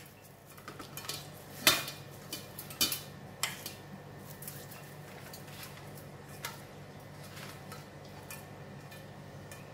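A few sharp clinks and knocks against a stainless steel bowl as a whole fish is handled and rubbed with salt, the loudest about two seconds in, then only small ticks over a faint steady hum.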